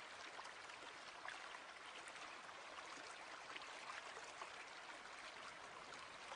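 Near silence: a faint, even hiss with small scattered crackles.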